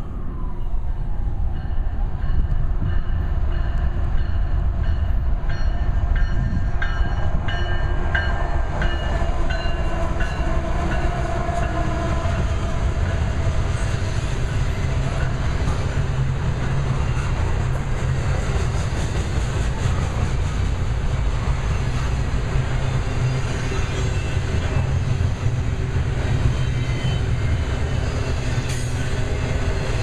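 GE diesel-electric locomotives (a Union Pacific ES44AC and a CSX AC4400CW) pass with engines running under load in the first half. Double-stack container cars follow, rolling by with a steady rumble of steel wheels on rail and occasional clicks over the joints.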